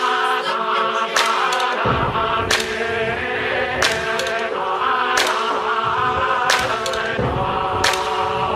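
Music soundtrack with chant-like choral vocals over a sustained drone, punctuated by a sharp percussive hit about every 1.3 seconds; a deep bass layer comes in about two seconds in.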